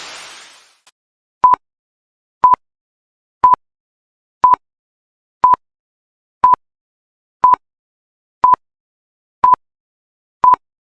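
Interval-timer countdown: ten short electronic beeps at one pitch, one a second, after the backing music dies away in the first second.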